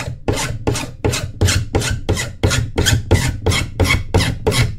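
Hand pipe scraper rasping along an HDPE pipe in quick, even strokes, about four to five a second, shaving off the pipe's oxidised outer skin to prepare it for electrofusion welding.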